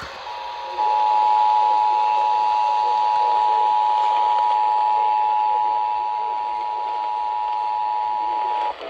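Emergency Alert System attention signal: two tones sounded together in a steady, grating chord, held for about eight seconds and cutting off just before the announcer's voice returns, over a faint broadcast hiss.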